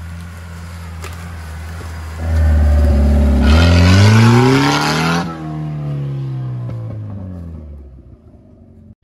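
Jeep Wrangler TJ driving past on a dirt track: the engine revs up as it approaches, is loudest as it goes by about three to five seconds in, then drops in pitch and fades as it drives away.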